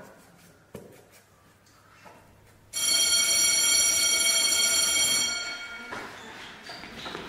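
Electric school bell ringing for about two and a half seconds, starting suddenly about three seconds in and then fading away, the signal that class is over. Before it, a few faint light taps in a quiet room.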